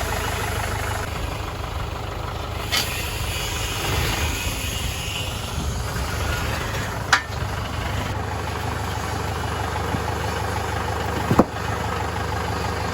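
Tractor engine running steadily, with three sharp knocks spread across the few seconds, the last one the loudest.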